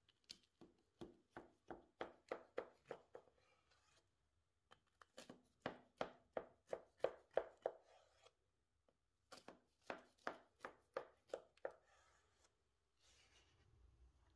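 Knife sawing back and forth through a crumb-topped strawberry cake down to the wooden board, in three runs of quick strokes about three a second, with short pauses between runs.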